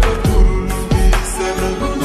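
Slowed-down, reverb-heavy Sinhala pop song, with deep bass hits that slide down in pitch under sustained chords.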